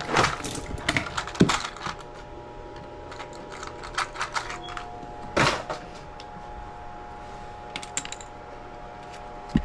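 Plastic clicking and rattling of wire connectors being picked out of a plastic parts organizer by hand, in short clusters of sharp clicks near the start, around the middle and near the end, over a faint steady hum.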